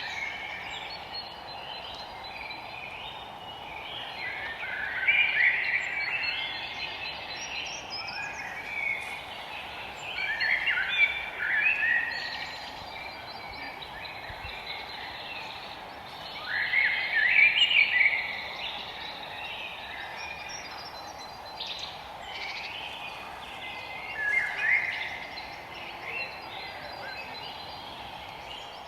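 Songbirds singing in the forest, a song phrase every five or six seconds, over a steady background hiss.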